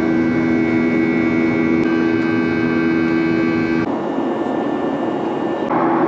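Boeing 737-800's jet engines at takeoff power, heard from inside the cabin: steady engine noise with a held hum of several tones. About four seconds in the tones drop away, leaving an even rushing cabin noise.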